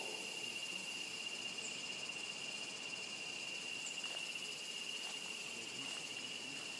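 Steady, high-pitched drone of insects, one unbroken tone, with a few faint high chirps now and then.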